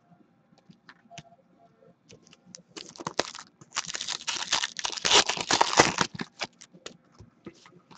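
A foil trading-card pack being torn open and its wrapper crinkled: a dense run of crackling from about three seconds in that dies away near six and a half seconds. Before it come a few faint clicks of cards being handled.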